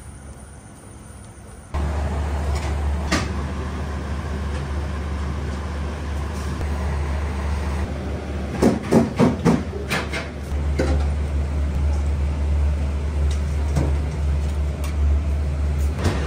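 Steady low drone of a commercial kitchen's ventilation, cutting in abruptly about two seconds in. About halfway through, a quick run of knocks and clatters.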